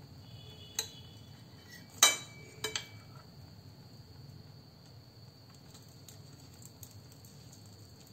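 Steel serving tongs clinking against a plate as a stuffed aubergine half is set down: a light tap, then a louder ringing clink about two seconds in, followed by two smaller taps. A faint steady high-pitched tone runs underneath.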